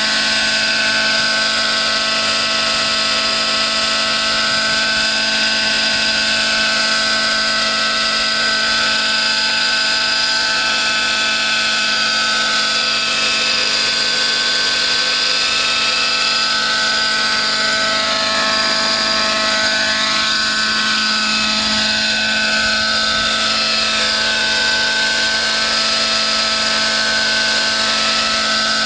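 Radio-controlled model helicopter hovering, its small engine and rotors running steadily with a high whine that wavers slightly in pitch past the middle.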